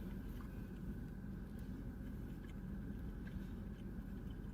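Steady low hum with a few faint small clicks over it.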